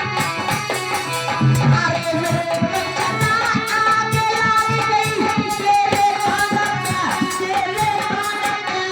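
Indian folk devotional music (a jas) with a steady tabla-style hand-drum rhythm under a sustained melody.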